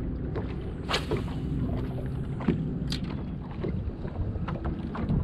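Wind buffeting the microphone over a low steady hum, with a few sharp clicks and knocks; the brightest, about a second in, is followed by a short high hiss.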